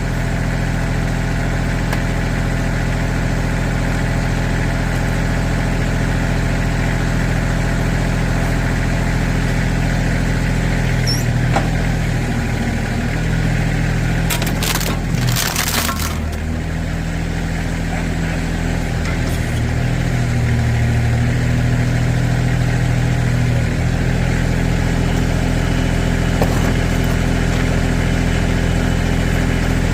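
Tractor backhoe engine running steadily while the bucket crushes junk VHS tapes and plastic toys. The engine note shifts under load partway through, with a short crunching burst about halfway.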